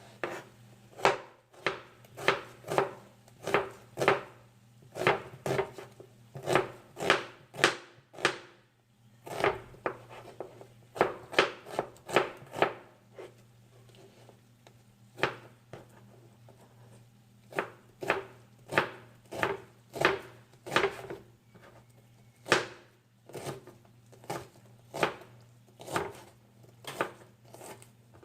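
Knife chopping on a cutting board in uneven strokes, about one or two a second, with a short pause about halfway. A steady low hum runs underneath.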